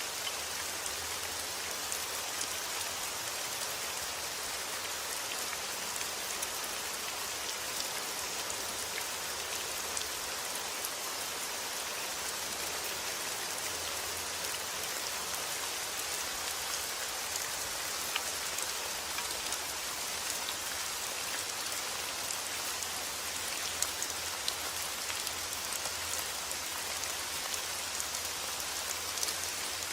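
Steady rain falling, a constant hiss with many small scattered drop ticks on a surface.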